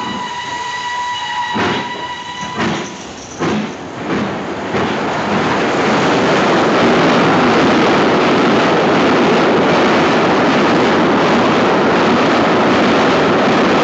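A steam locomotive whistle blows one steady note for nearly three seconds, then a few sharp knocks, then the loud, steady rush and clatter of a steam express train passing through the station at speed, heard on an old film soundtrack.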